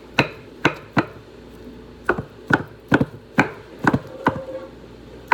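Kitchen knife chopping on a cutting board: about ten sharp knocks at roughly two a second, pausing briefly a little after one second in.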